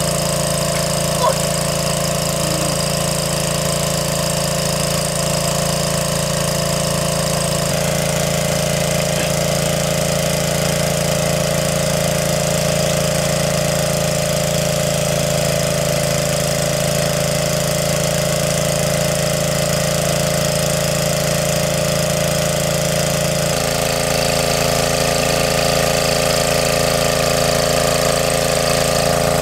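Small motor-driven water pump running steadily with an even hum, drawing water through a suction hose to drain a stream pool; its tone shifts slightly twice.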